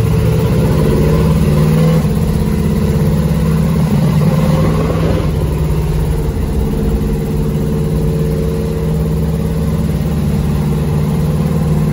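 Oldsmobile Rocket 350 V8 of a 1969 Cutlass running steadily under way, heard from inside the car's cabin, its pitch holding nearly level with only slight rises and dips.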